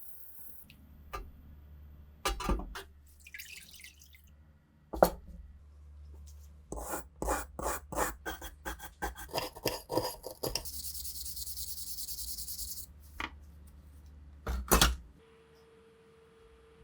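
Hand work on rusty rifle parts: scattered knocks and clicks, then a quick run of rubbing or scraping strokes, about three to four a second, followed by a steady hiss lasting about two seconds, then two more knocks.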